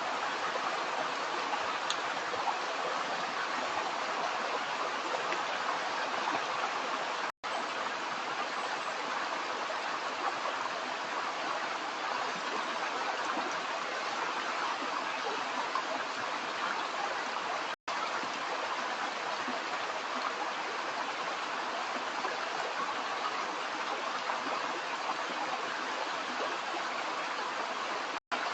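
Stream running water: a steady, even rushing. It drops out for an instant three times.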